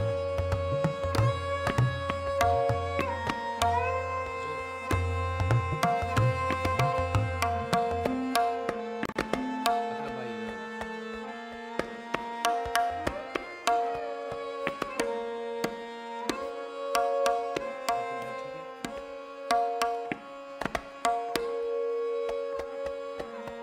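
Tabla playing: quick sharp strokes on the treble drum and deep resonant strokes on the bass drum, over a sustained melodic accompaniment that repeats a short stepping tune (a lehra). The deep bass strokes thin out for a long stretch in the middle and come back near the end.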